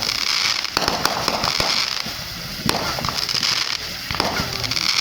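Consumer fireworks going off: a string of sharp bangs and crackling pops, with stretches of fizzing hiss.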